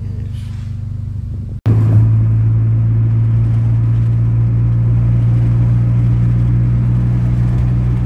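Steady low drone of a car's engine and road noise heard inside the cabin. It breaks off for an instant about one and a half seconds in and comes back louder as the car drives along.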